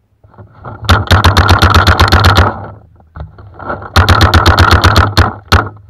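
Paintball marker firing in rapid bursts, about nine shots a second: a burst of a second and a half about a second in, another of about a second starting about four seconds in, then two single shots near the end.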